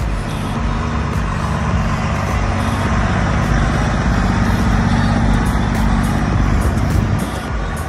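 Freightliner Columbia semi truck's diesel engine pulling an empty flatbed trailer past close by. Its low drone grows louder, then drops off sharply about seven seconds in as the truck moves away.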